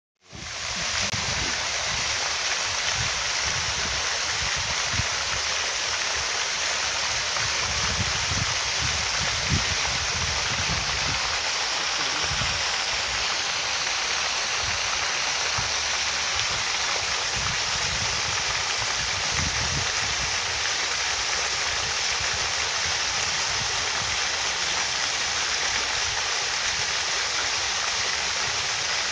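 Pond fountain spray falling back onto the water: a steady, even rush of splashing water, with an irregular low rumble underneath.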